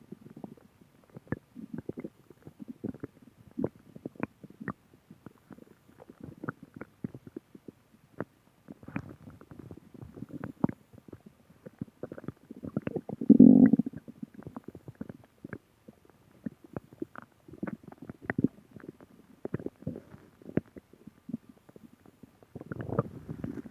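Human stomach gurgling and rumbling: a run of small wet pops and gurgles with low growls between them, and one louder, longer rumble a little past the middle.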